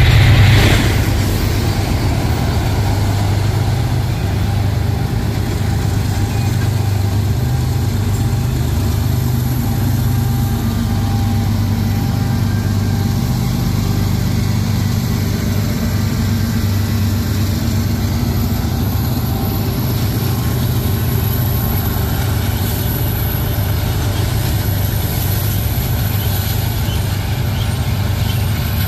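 CN freight train's diesel locomotives passing close, with a steady, loud engine drone, then the train rolling on as they pull away. Loudest at the start, easing about a second in.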